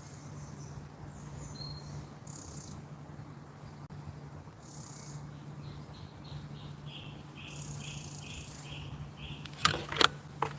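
A bird calling a quick run of short, repeated high notes, about three a second, over a steady low hum, with three sharp knocks near the end.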